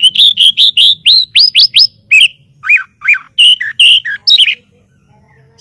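White-rumped shama (murai batu) singing: a fast run of loud, clear whistled notes, several sweeping sharply upward, then a few lower notes that dip and rise again, stopping about four and a half seconds in.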